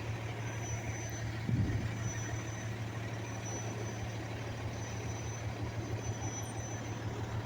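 Large diesel engine idling with a steady low hum, typical of a fire truck standing by on scene, swelling briefly about a second and a half in. A faint high-pitched beep repeats every second or so.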